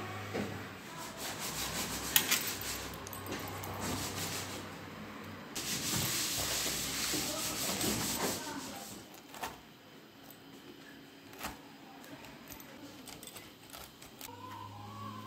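Metal pizza-cutter wheel rolling through a crisp, baked semolina flatbread: a dry, crunchy rasping, loudest for a few seconds around the middle, with a few sharp clicks as the crust cracks.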